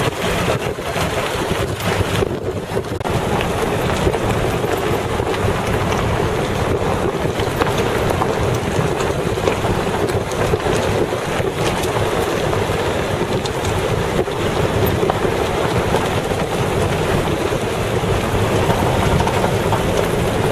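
Steady rush of wind on the microphone over the engine and tyre noise of a moving off-road vehicle on a sandy track.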